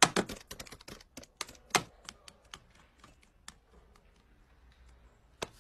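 Calculator keys clicking as buttons are pressed in quick, irregular taps. The taps are busiest in the first two seconds and thin out after.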